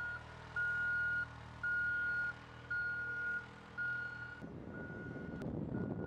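A vehicle's reversing alarm beeping, one long beep about every second, over a steady engine hum. About four and a half seconds in, the hum gives way abruptly to a rough low rumble, and the beeps carry on fainter.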